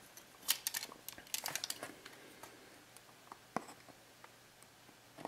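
Light handling noises of a small cardboard box: faint rubbing and a scatter of small clicks and taps, mostly in the first two seconds, with one sharper click in the middle.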